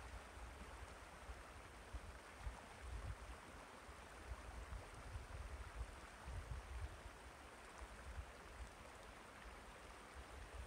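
Shallow river water flowing over a line of rocks, a faint steady rush, with low wind rumble on the microphone now and then.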